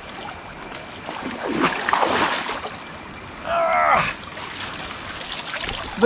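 River water splashing, with a rush lasting about a second around two seconds in, followed by a short human call.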